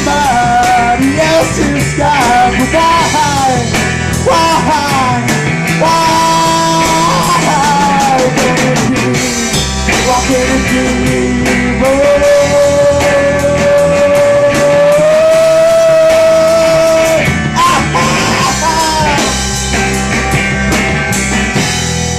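Rock music: a full band with guitars, its melody line holding one long note for several seconds about halfway through.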